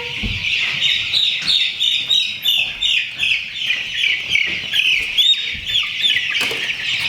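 A crowd of young Cornish-cross meat chicks peeping continuously, many short, high, falling peeps overlapping. A few faint knocks are mixed in.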